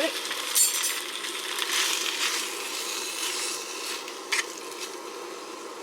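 Food sizzling in a metal mess tin over a gas burner, with a rubber spoon stirring and scraping the tin now and then.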